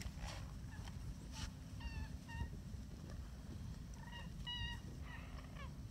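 Birds calling: a pair of short calls about two seconds in and a quick run of calls about four seconds in, over a steady low rumble.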